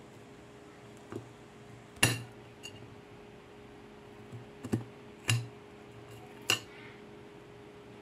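Small kitchen knife slicing bitter gourd, its blade clicking sharply against a plastic cutting board about five times at uneven intervals, the loudest about two seconds in. A faint steady hum runs underneath.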